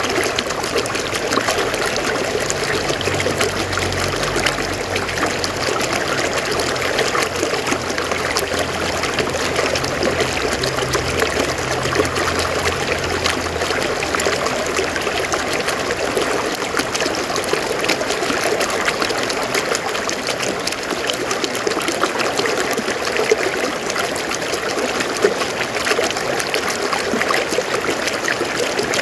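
River water flowing and trickling over rocks: a steady, dense splashing babble.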